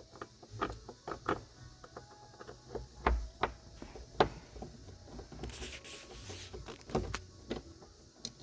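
Hand Phillips screwdriver working screws out of a truck door's interior latch trim: scattered clicks and light knocks of the tool on the trim, with a brief rustle a little past the middle.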